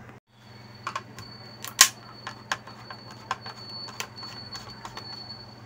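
Small clicks and taps of a circuit board and its plastic front panel being handled, scattered and irregular, the loudest about two seconds in. Under them runs a steady, thin, high-pitched whine and a low electrical hum.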